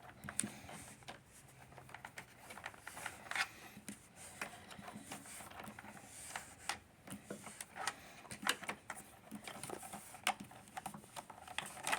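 Power cord being unwound from a vacuum cleaner: scattered light clicks and rattles of the cord and plug against the machine's plastic body. The vacuum motor is not running.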